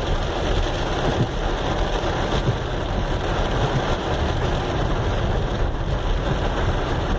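Heavy rain with a vehicle engine running underneath: a steady wash of noise with a low rumble.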